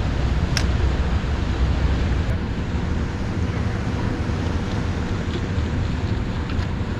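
Steady wind buffeting the microphone, a low rumbling rush, with one sharp click about half a second in.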